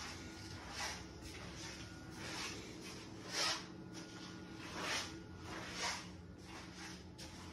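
Soft scuffing footsteps on a hard floor, one every second or so and a little uneven, the loudest about three and a half seconds in, over a faint steady hum.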